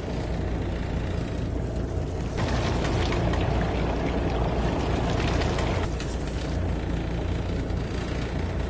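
Fishing boat's engine running with a steady low hum; a rush of noise swells over it for a few seconds in the middle.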